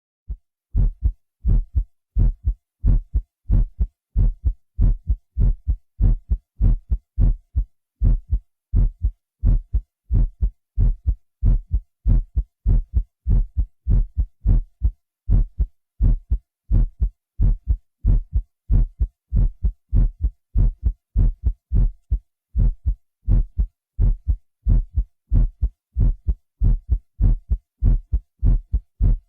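A human heartbeat recording, digitally processed and enhanced on a Synclavier: low double thumps (lub-dub) beating steadily at about one and a half beats a second.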